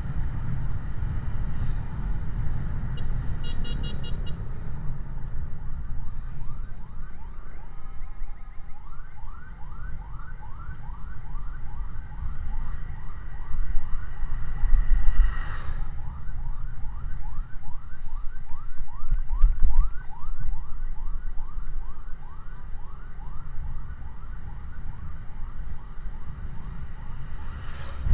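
Emergency vehicle siren in fast yelp mode, a quick rising sweep repeated about three times a second, which starts about seven seconds in. Heavy road and wind rumble from the moving vehicle runs underneath.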